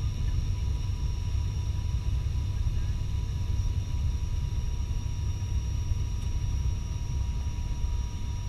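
ATR 72-600 turboprop in cruise or descent, heard from inside the passenger cabin beside the propeller: a steady deep drone with two thin constant whines over it.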